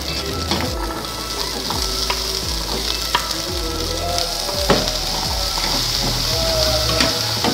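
Sausage slices and chopped vegetables sizzling in hot oil in a frying pan, with a steady hiss and a metal spatula scraping and clicking against the pan as they are stirred.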